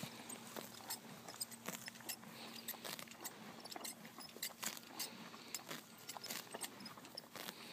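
Cream draft horse grazing: irregular crisp crunches of grass being torn and chewed, several a second.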